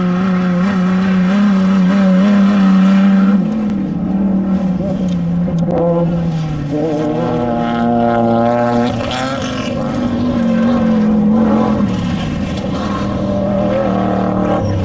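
Off-road desert race vehicle engines running hard, their pitch holding steady for a few seconds and then shifting up or down several times.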